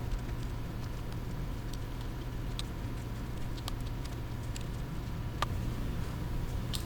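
A few faint, sharp clicks and taps of small tablet parts being handled and fitted, spread a second or so apart, over a steady low electrical hum.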